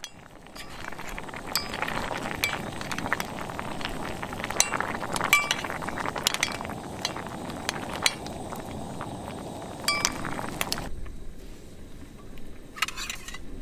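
Clam acqua pazza simmering in a shallow pan with a bubbling hiss, while a spoon stirs and ladles the broth and clinks against the clam shells and the pan rim about a dozen times. It all stops abruptly about eleven seconds in.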